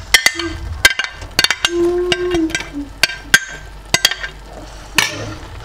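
Sharp metallic clinks and knocks of a utensil striking a stainless steel cooking pot, about a dozen in quick, irregular succession, each with a short ring, thinning out near the end.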